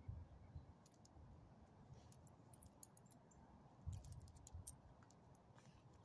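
Near silence with faint scattered clicks and a few soft low thumps: a small dog sniffing and stepping about on gravel.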